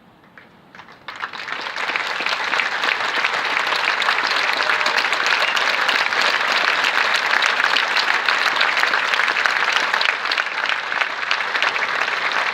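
Crowd applauding: a few scattered claps, then from about a second in, a full round of steady applause.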